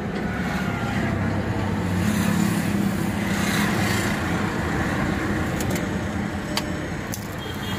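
Steady engine and road noise inside the cabin of a 2019 Hyundai Creta driving at low speed, with one sharp click late on.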